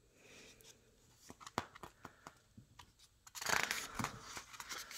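A picture book's page being turned: a few faint ticks of the paper being handled, then a short paper rustle about three and a half seconds in.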